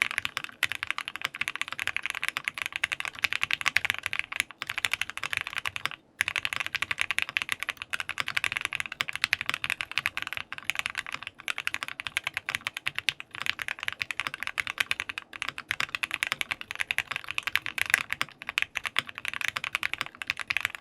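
Continuous fast typing on a Jelly Epoch mechanical keyboard with a PC plate and Gateron Ink Black v2 linear switches lubed with Krytox 205g0 and filmed, its hot-swap PCB stand-off screws removed to make the sound more uniform. The typing breaks off briefly about six seconds in.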